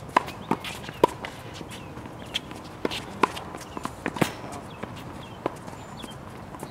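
Tennis balls being struck with rackets and bouncing on a hard court: about ten sharp, irregularly spaced pocks, some with a brief ringing tone, over steady outdoor background noise.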